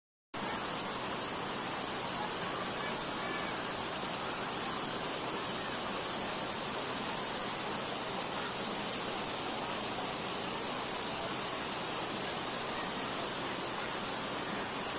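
Waterfall roaring steadily: a constant, even rush of falling water.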